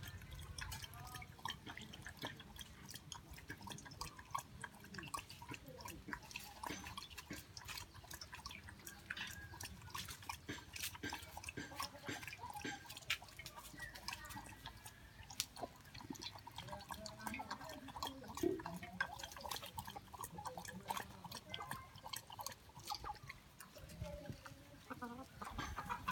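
Chickens clucking faintly, with many small clicks and ticks.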